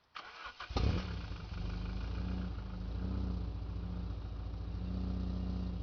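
Alfa Romeo 156 2.0 Twin Spark four-cylinder engine being started: the starter cranks for about half a second, the engine catches with a loud burst, then settles into a steady idle.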